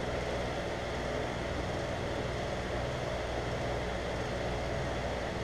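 Steady low mechanical hum of a running motor or fan in a machine shop, even throughout with no distinct knocks or clicks.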